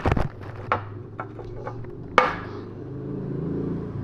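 Sharp clicks and knocks of plastic containers being handled while a little water is added to slime, the loudest knock about two seconds in, over a low steady hum.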